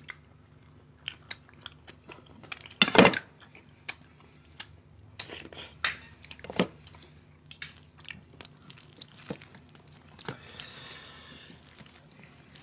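Close-up eating sounds: a couple chewing and crunching, with wet smacks and the squish of hands mixing rice and fish curry on steel plates. Short irregular clicks and smacks, the loudest about three seconds in.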